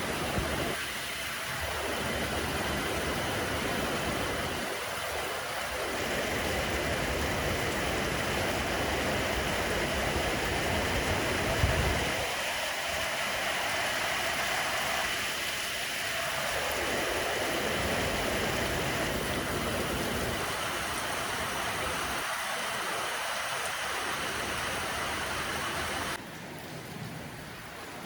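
Heavy rain falling in a steady hiss, with wind gusting on the phone's microphone in low rumbles that come and go. The sound drops suddenly in level near the end.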